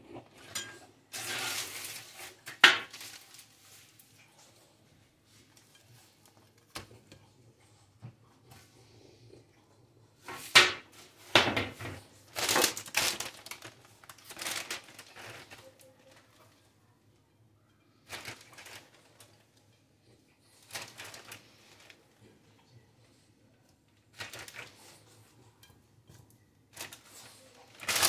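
Pizza slices being moved onto plates with a utensil, giving scattered clacks and scrapes on the plates, and a plastic bag of rocket rustling as it is shaken over the pizza near the end. The sounds come in short bursts with quiet gaps between them.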